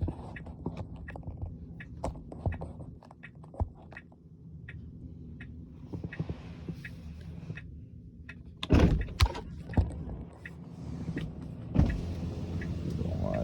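Repeated ticking inside a Tesla's cabin, an unexplained fault the owner cannot place, going on while the car reboots. A few heavier thumps come about nine seconds in and again near twelve seconds.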